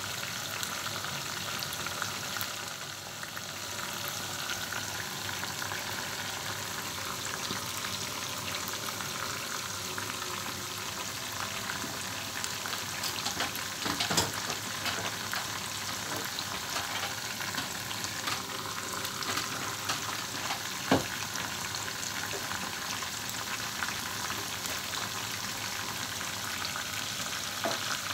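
Marinated chicken pieces frying in hot oil in a pan: a steady sizzle with light crackle as the chicken browns. A couple of sharp clicks stand out, about halfway through and again about three-quarters of the way in.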